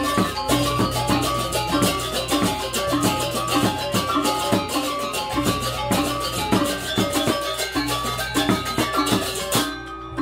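Balinese gamelan music: fast, evenly paced struck metal-keyed notes over drums. The bright, high part of the playing drops out near the end.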